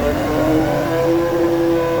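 An engine running steadily with a droning hum; its pitch steps up slightly about half a second in.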